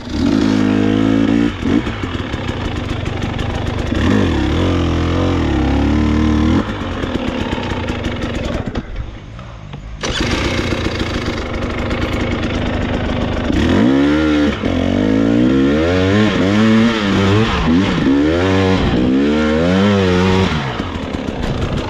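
Dirt bike engine revving up and down as the bike is ridden on a trail, its pitch rising and falling repeatedly. Its level drops briefly about nine seconds in, and the revs swing fastest and most often in the second half.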